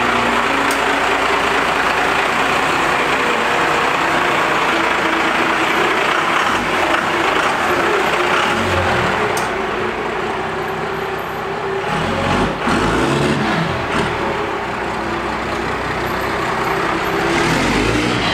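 Diesel pickup engine running steadily, its note shifting a little partway through. This is the dually's 12-valve Cummins, just restarted after adjustments to the injection pump's AFC housing and star wheel.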